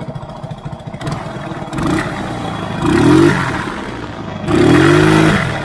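Quad bike engine revved in three bursts, each rising in pitch, the last the longest and loudest, as the bike struggles to get going in soft desert sand.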